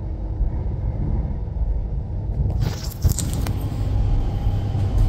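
Low running rumble inside an electric suburban train carriage. It sounds muffled at first, then opens up about halfway in, with a short burst of scraping and clatter.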